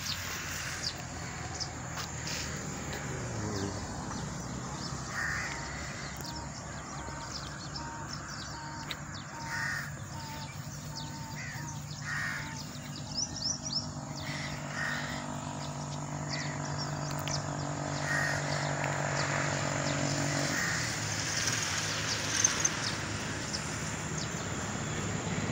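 Crows cawing now and then over open-air ambience. A steady low hum joins in partway through and cuts off abruptly about twenty seconds in.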